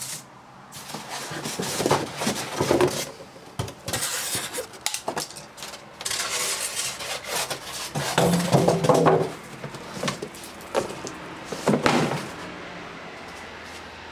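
Hard objects being handled, clattering and clinking in irregular bursts with short pauses between them.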